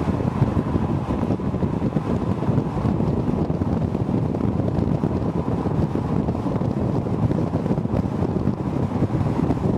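Wind buffeting the microphone of a camera on a moving car, a steady rumble with the car's driving noise underneath.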